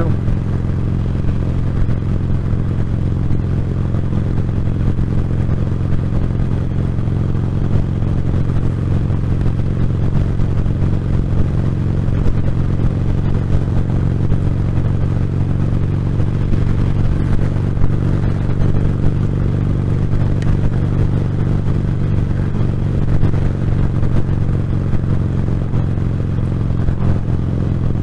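Wind noise inside a motorcycle helmet at about 50, picked up by a microphone in the helmet's cheek pad under a foam sock and fake fur, over the motorcycle's engine running steadily.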